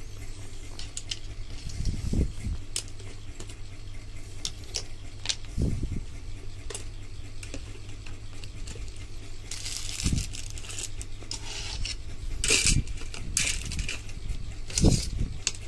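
Plastic sprues and parts of a Tamiya Mini 4WD kit being handled in their cardboard box: scattered light clicks and clatter, with rustling bursts around the middle and near the end. A steady low hum runs underneath.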